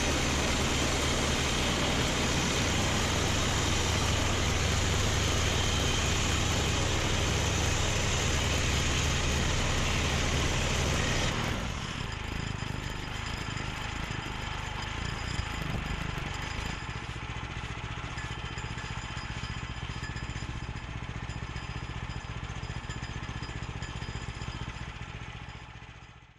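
Engine running steadily; about eleven seconds in it drops to a lower, quieter run, which then fades out at the end.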